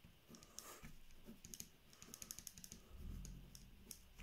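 Faint scratching and tapping of a ballpoint pen writing on a sheet of paper: quick, uneven strokes of the tip against the page.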